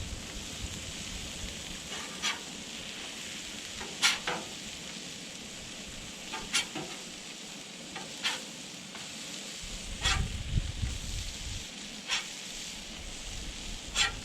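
Meat and tortillas sizzling steadily on a Blackstone flat-top griddle as the smash tacos are flipped, with a metal spatula clicking against the griddle about every two seconds.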